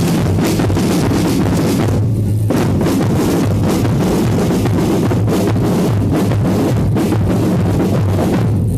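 Loud band music driven by a drum kit with a steady beat of bass drum and snare, briefly thinning out about two seconds in.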